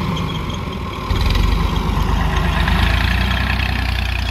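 Diesel farm tractor engine running steadily, growing louder about a second in.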